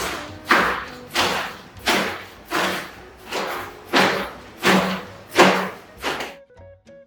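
A regular series of about ten thumps, roughly one every 0.7 seconds, stopping near the end, over soft background music.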